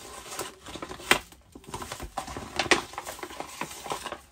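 Small gift box and its paper packaging being opened by hand: a run of clicks, taps and rustling, with two sharper snaps about a second and nearly three seconds in.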